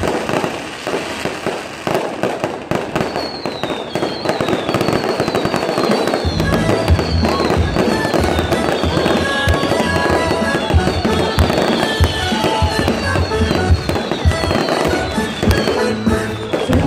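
Fireworks crackling and popping densely as fountains spray and aerial shells burst overhead. Music plays alongside, with a low beat coming in about six seconds in.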